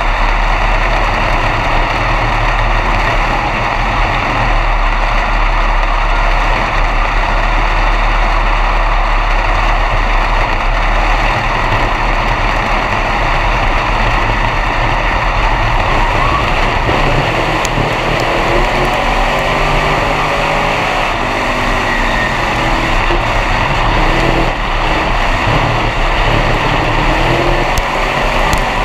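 B-Mod dirt-track race car's engine heard from inside the cockpit, running loud and steady; in the second half its pitch steps up and down as the throttle is eased and opened.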